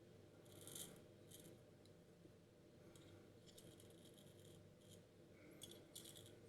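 Faint, short scraping strokes of a C.V. Heljestrand lathercatcher safety razor cutting through lathered stubble on the first pass, several strokes in a row with short pauses between them.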